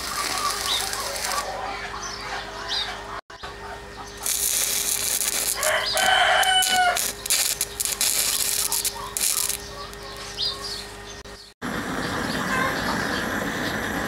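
Stick-welding arc with a 6013 rod crackling and hissing in short bursts as a new piece is tack-welded onto a tractor's steel wheel, with a rooster crowing once in the middle. Near the end, after a break, the steady rushing hiss of a gas torch preheating the joint.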